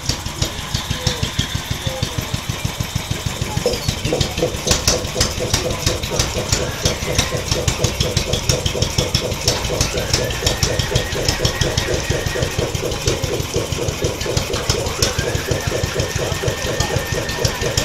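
A small steam engine running steadily, with a fast, even beat of exhaust puffs and mechanical clicks.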